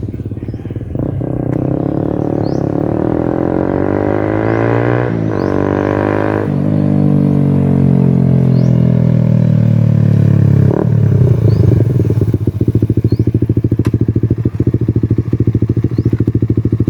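Suzuki Raider 150 FI's single-cylinder four-stroke engine, run with the silencer pulled out of its muffler, revving up with two gear changes and then falling in pitch as it slows. About eleven seconds in, it settles into a loud, throbbing low idle close by.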